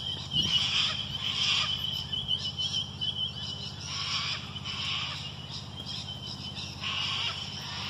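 Harsh bird calls in three bursts, about half a second, four seconds and seven seconds in, with a thin high tone through the first three seconds, over a steady low hum.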